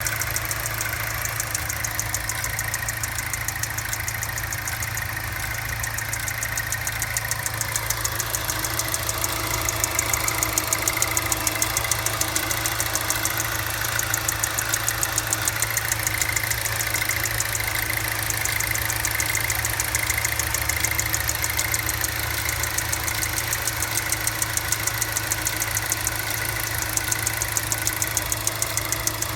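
GM LNF 2.0 L turbocharged direct-injection four-cylinder engine idling with a rapid, even tapping tick. The owner says the tick comes on at initial start-up and goes away once the engine warms up.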